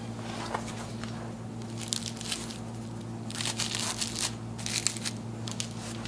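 Nylon Y-strap harness being handled and fitted around a head: bursts of crinkly rustling and crunching, a short one about two seconds in and a longer run from past the middle until near the end, over a steady low hum.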